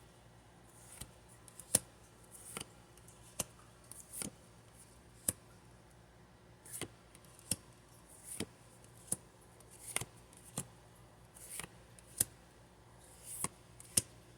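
Pokémon trading cards and their foil pack being handled: a string of brief swishes and sharp clicks, one about every half second to second.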